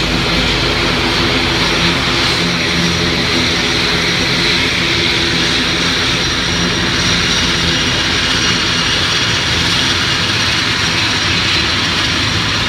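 ATR 72-600's twin Pratt & Whitney Canada PW127 turboprop engines running at low power while it taxis in. A steady propeller drone with a thin high turbine whine above it.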